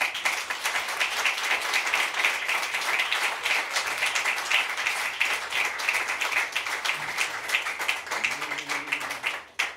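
Audience applauding, a dense steady clapping that dies away suddenly near the end.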